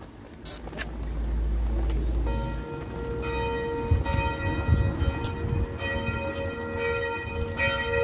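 Church bells ringing, coming in about two seconds in and sounding on steadily with several tones at once, after a low rumble at the start.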